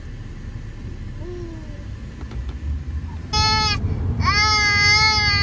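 Steady road rumble inside a moving car, then a baby vocalizes: a short high held tone a little over three seconds in, followed by a longer held one at the same pitch.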